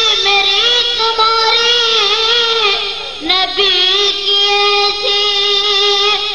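A boy singing a naat (Islamic devotional praise song) into a microphone. He holds long, ornamented notes and takes a short breath about three seconds in.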